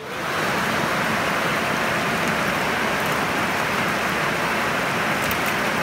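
Steady rush of falling or spraying water, starting abruptly and holding an even level throughout.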